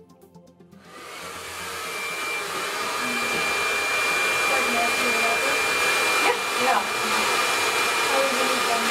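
Handheld hair dryer blowing on wet hair, switching on about a second in, growing louder, then running steadily with a thin high whine.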